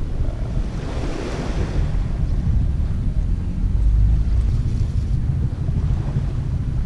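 Wind buffeting the microphone: a steady low rumble, with a louder rushing gust about a second in.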